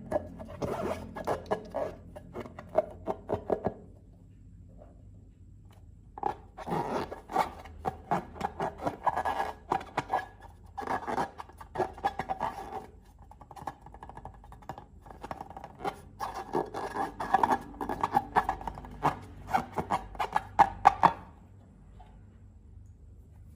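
Slime being squeezed and stretched by hand, making rapid sticky crackles and small pops in bursts. There is a pause about four seconds in, and the sound stops near the end.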